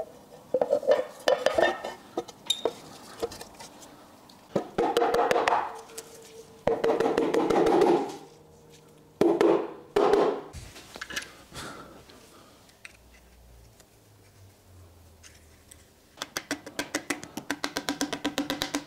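Background music over metal clinks and handling noise as parts are fitted to a bare engine, with a rapid run of clicks from a hand tool on the crankshaft bolt near the end.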